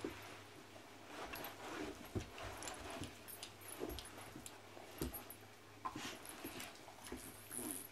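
Two dogs play-wrestling on carpet: scuffling, mouthing and soft dog noises, with a few irregular soft thumps.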